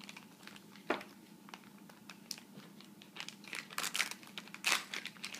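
Lego minifigure blind bag crinkling as hands dig into it to get the figure out: irregular crackles, sparse at first and getting denser and louder in the second half.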